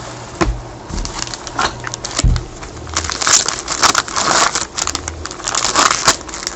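A trading-card pack's wrapper being torn open and crinkled by gloved hands, a dense crackling from about three seconds in, after a few soft knocks.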